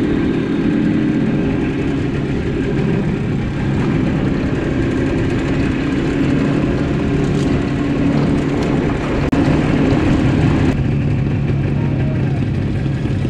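Motorcycle engines running at road speed, with wind rush on the microphone. About eleven seconds in, the sound changes abruptly to engines idling at a standstill.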